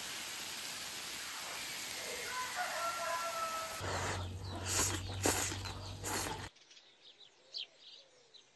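A rooster crows once, one held call about two seconds in, over a steady hiss. It is followed by a few seconds of loud sharp noises over a low hum, then a quieter stretch with a few brief bird chirps near the end.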